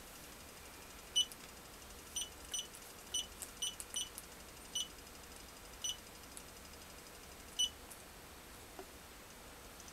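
Keypad of a JEC total station beeping as its keys are pressed: about nine short, high electronic beeps at irregular intervals, one for each key press.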